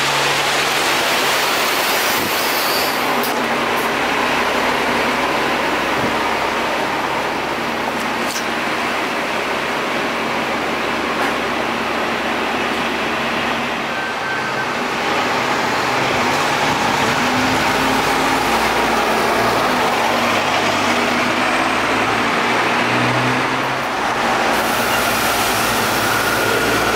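Cabin noise inside an Alexander Dennis Enviro 400 double-decker bus on the move, heard from the lower deck: a steady engine drone that rises and falls in pitch, climbing from about halfway through, over a constant hiss of air-conditioning and road noise.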